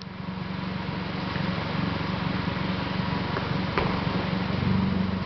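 Hyundai Tuscani 1.6 four-cylinder engine rumbling steadily through RcRacing 4-2-1 headers, a straight-through mid-pipe and a Roar aftermarket exhaust, with a couple of brief sharp clicks around the middle.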